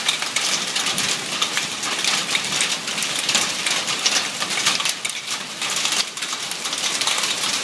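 Hail and rain pelting down on pavement and nearby surfaces: a steady, dense spray of countless small impacts.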